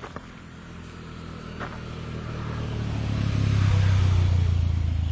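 A motor engine running as it approaches, a low drone getting steadily louder to a peak about four seconds in, then easing off slightly. A sharp click comes at the very start.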